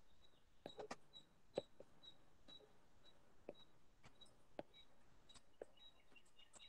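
Near silence with a few faint, sharp taps spread over the seconds, a stylus tapping and erasing on a tablet screen.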